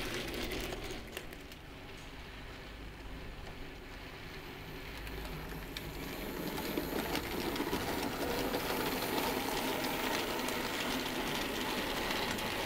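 00 gauge model freight train running on the track: small electric motor whirr with the wheels and wagons rattling over the rails. It is softer early on, then grows louder from about halfway as a steam locomotive model and its mineral wagons come past.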